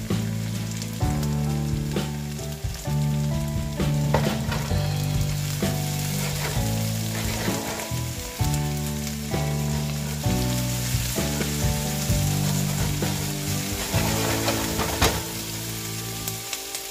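Chopped onion and bell pepper strips sizzling in a hot frying pan, stirred and scraped with a spatula, over background music of steady low notes that change about once a second.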